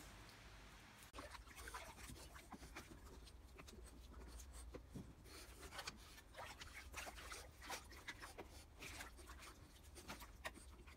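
After about a second of near quiet, dogs move about in a shallow plastic paddling pool: irregular small splashes and scratchy paw sounds on the wet plastic.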